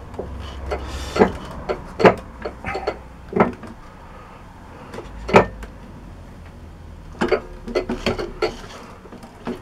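A run of separate clicks and knocks from the metal lathe's headstock being handled to take the back gear out of engagement, over a faint low hum.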